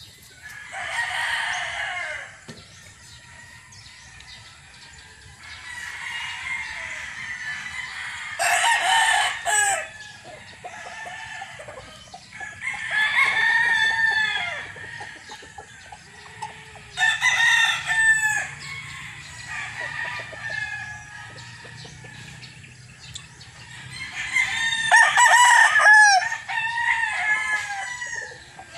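Gamefowl roosters crowing again and again: about five long crows a few seconds apart, the loudest near the end, with fainter calls between them.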